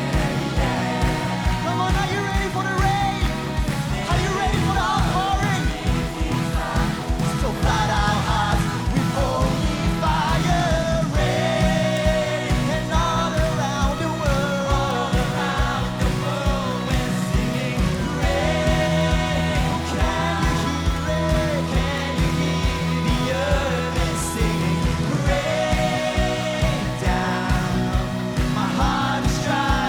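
Live worship band playing a rock-style song with drums, bass and guitars, a lead voice singing the melody over it.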